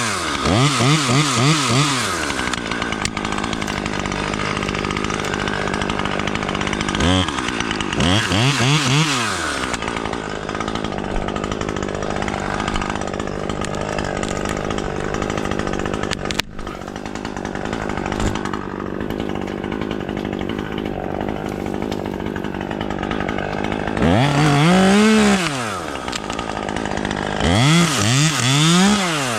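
Chainsaw revving in quick pulses, its pitch jumping up and down, in several spells, and running steadily in between. There is a single sharp click about halfway through.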